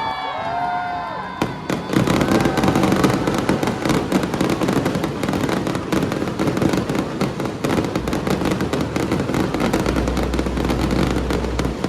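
Fireworks show: after a quieter first second and a half, a dense, continuous barrage of rapid bangs and crackling pops, with a low rumble beneath.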